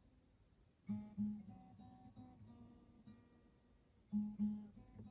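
Acoustic guitar being played: two quick strummed chords about a second in, single notes ringing and dying away after them, then two more strummed chords about four seconds in.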